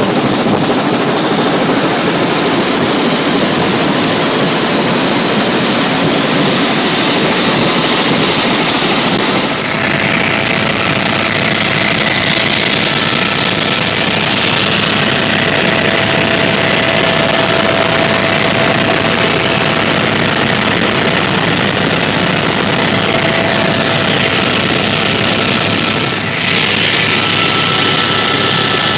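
Helicopter turbine engine and rotors running, loud and steady with a faint high whine. The sound changes abruptly about ten seconds in, when it is heard from inside the cabin in flight, and changes again near the end.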